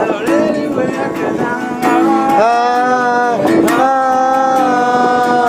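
Live music: an acoustic stringed instrument strummed in a steady rhythm, and from about two seconds in a voice holding long sung notes over it.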